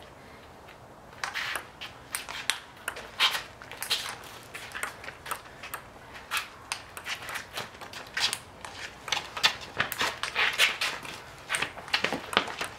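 Ping-pong rally: the celluloid ball clicks sharply off paddles, the table top and the concrete, several clicks a second, starting about a second in and coming thickest near the end, mixed with players' shoes scuffing on the concrete.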